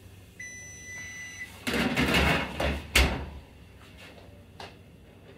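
A pan of baked cornbread is pulled out of the oven and set on the gas stove's grate with a scraping clatter, then the oven door shuts with a sharp bang about three seconds in.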